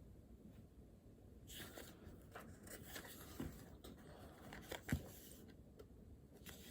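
Faint scratching and rustling of writing on paper, with scattered soft clicks and one sharper tap about five seconds in.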